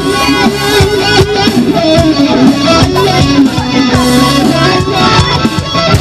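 Live band playing an instrumental passage loudly: electric guitar over bass and a steady drum beat, with a few bent, gliding guitar notes.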